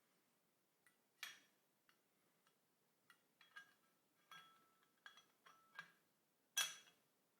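A series of small sharp metallic clicks and clinks, a few with a brief ring, as Mauser K98k rifle parts (action, trigger guard and stock) are handled and fitted together during reassembly. The loudest clicks come about a second in and near the end.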